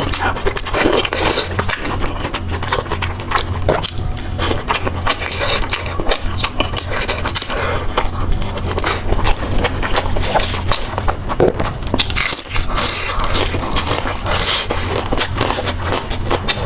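Close-miked eating of fried skewered snacks: steady chewing and biting with dense crackly mouth clicks, under a low steady hum.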